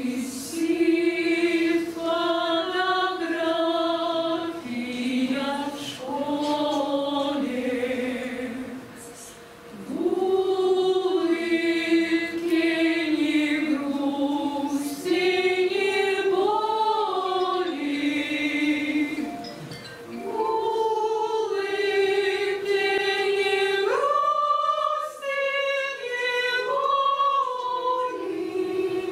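A choir singing a slow song in long held phrases, with short breaks about a third and two-thirds of the way through.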